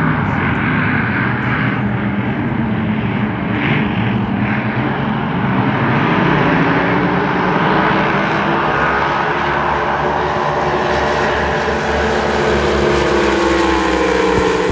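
Racing powerboats running at full throttle, a loud, steady engine drone from several boats at once. Near the end, as two boats pass close, their engine pitch slides.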